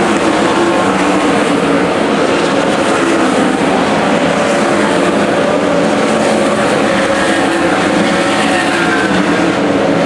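Winged 410 sprint cars' V8 engines running at speed around a dirt oval: a loud, continuous drone with several engine notes overlapping.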